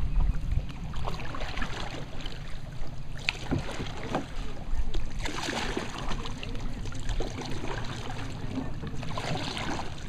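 Canoe paddle strokes splashing and trickling in the water, swelling twice, with a low wind rumble on the microphone throughout.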